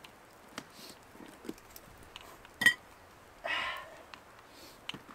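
Sparse light clinks and taps of camp cookware and utensils, the sharpest a ringing clink about halfway through. A little after it comes one short high-pitched call.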